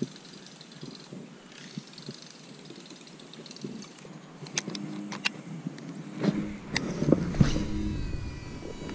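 Baitcasting reel being handled and cast: a few sharp clicks about halfway through, then a rustling rumble and a fading whir as the spool runs out line near the end.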